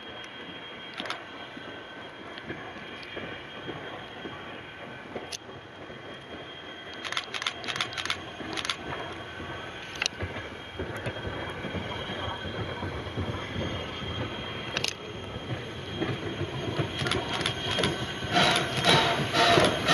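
Steam locomotive CN 89, a 2-6-0 Mogul, rolling slowly toward the listener with wheels squealing and clicking on the rails, growing steadily louder. A dense clatter builds near the end as it draws close.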